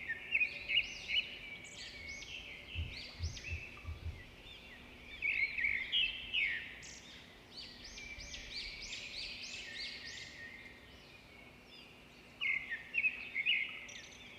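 Small birds singing in repeated phrases of quick chirps and rising-and-falling notes, with a few soft low thumps about three seconds in.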